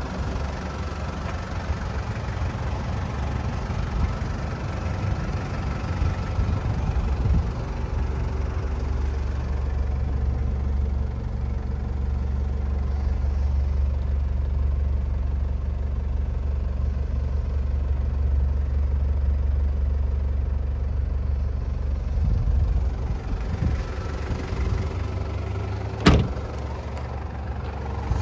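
Toyota 1KZ-TE 3.0-litre four-cylinder turbo diesel idling steadily, with a single sharp knock near the end.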